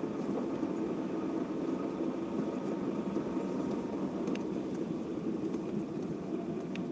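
Car driving at low speed along a wet road, heard from inside the cabin: a steady hum of the engine and tyres.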